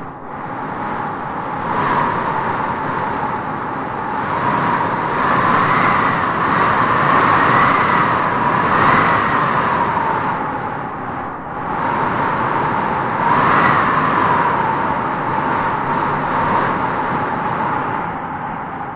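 Wind howling in gusts: a steady rush with a whistling tone that rises and falls, swelling a few times and easing off again.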